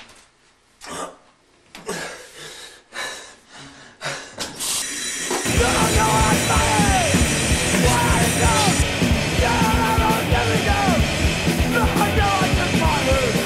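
A person gasping in short breaths, about one a second. Then, about five seconds in, loud punk rock music with a shouting singer starts suddenly and keeps playing.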